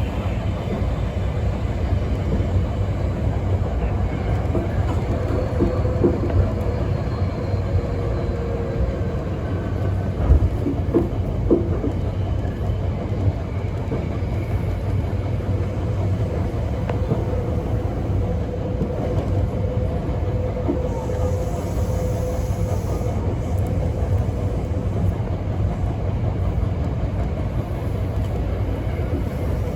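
Hankyu Kyoto Line electric commuter train running at speed, heard from inside the front car: a steady rumble of wheels on the track with a steady whine over it, and a few knocks from the wheels passing rail joints around ten to twelve seconds in.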